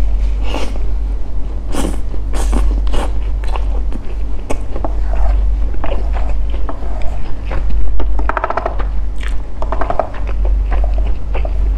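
Close-miked mouth sounds of a person eating a spoonful of sticky rice with durian in coconut sauce: wet chewing and smacking with many small clicks, over a steady low hum.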